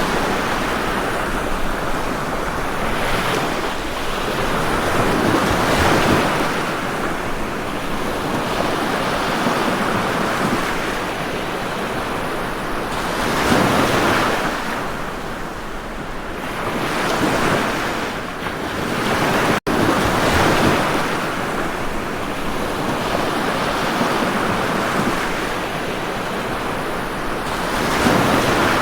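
Ocean surf breaking on a shore, a steady wash that swells as each wave comes in every few seconds, with a split-second gap about two-thirds of the way through.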